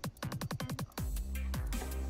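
Background electronic dance music: a quick roll of deep drum hits, then a held bass note.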